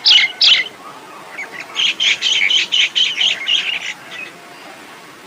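A myna calling: two harsh calls right at the start, then a quick run of about ten chattering notes from about two seconds in to four seconds.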